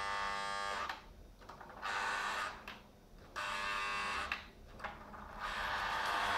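Electric horn of a Lionel O-gauge toy diesel locomotive sounding in four buzzing blasts, the last one short. Near the end comes the steady rumble of the train running on the metal track, growing louder as it comes close.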